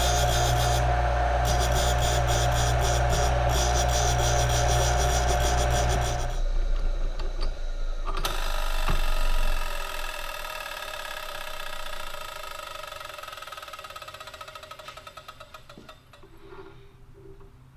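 Bench grinder running with a drill-point sharpening attachment, its wheel grinding the point of a 14 mm drill bit in rasping passes that come and go. About six seconds in the grinder is switched off and the wheel runs down, fading away.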